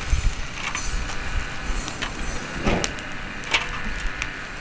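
Scattered clicks and clinks of long metal tongs and an aluminium foil lid being lifted off a campfire grill and set down on the ground, over a low rumble of wind on the microphone.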